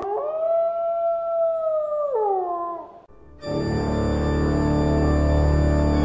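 A single long wolf howl that glides up, holds steady for about two seconds, then falls away. After a brief gap, sustained organ chords come in loudly about halfway through.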